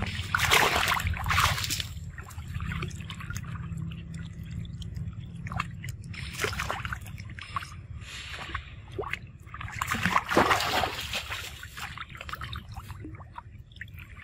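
Pool water splashing and sloshing as macaques swim and dive in it, with irregular splashes. The louder ones come about half a second in, near six and a half seconds and around ten seconds, over a steady low rumble.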